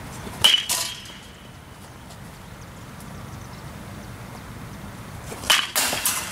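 Baseball bat striking pitched balls twice, about five seconds apart. Each hit is a sharp metallic ping with a short ring, followed a moment later by a second knock as the ball lands.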